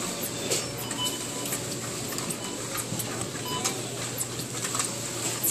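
Busy grocery store background noise: irregular clicking and rattling, with short faint beeps here and there.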